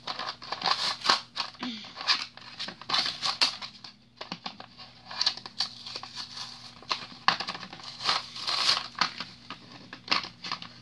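A wrapper being torn and crumpled off a small toy box by hand, in an irregular run of rips and crinkles.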